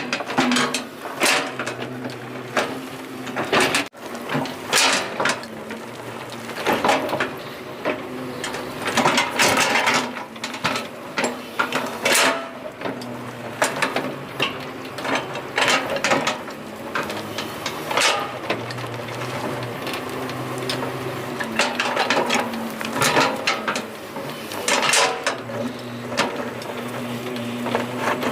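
An excavator at work: a steady motor hum under repeated irregular clanks, knocks and scrapes.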